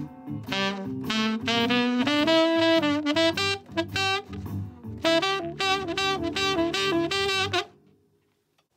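Saxophone playing an improvised blues solo over a blues backing track, its phrases built on the sixth-degree blues scale (the E blues scale over a tune in concert G), which gives a bright, major-sounding blues feel. The music stops near the end.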